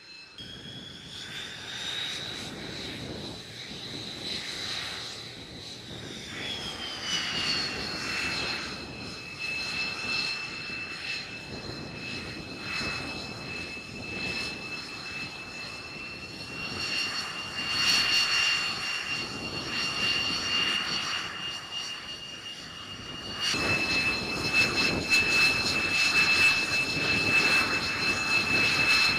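Jet aircraft engines running on a carrier flight deck: a high turbine whine over a rushing roar. The whine dips in pitch a few seconds in and then holds steady, and the sound gets louder near the end.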